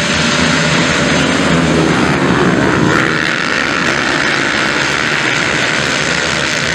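A pack of motocross bikes revving hard off the start line, many engines running together at high revs as one dense, steady wall of sound.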